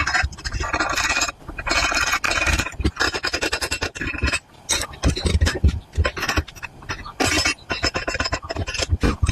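Welding-shop metalwork: repeated short bursts of harsh crackling and scraping, each lasting about half a second to a second, with clinks between them.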